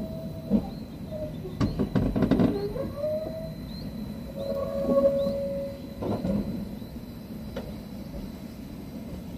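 INKA battery tram prototype rolling slowly along the rails. A quick cluster of clicks and knocks from the wheels comes about two seconds in, and drawn-out wheel-on-rail squeals come several times, the loudest about five seconds in.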